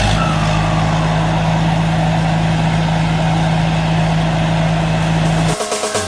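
Combine harvester engine running steadily at an even pitch, cut off about five and a half seconds in as music starts.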